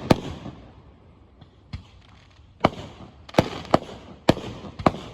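Fireworks going off: a string of sharp bangs, about seven, at irregular intervals, each trailing off in a short echo.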